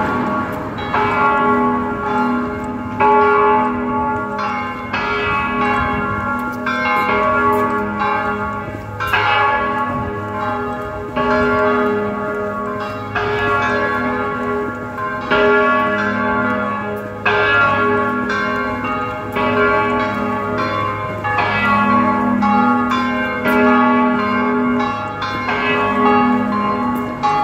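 A ring of church tower bells pealing, each bell struck in turn in a steady, repeating rhythm of several pitches.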